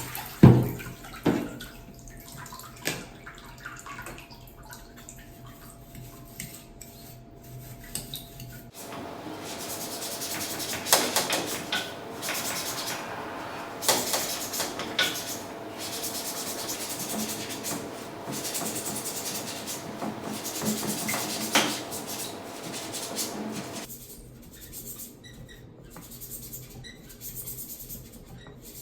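Tap water running and splashing as air-conditioner filter and grille parts are washed, with scattered knocks and clatter of the parts. The running water starts about a third of the way in and stops near the end.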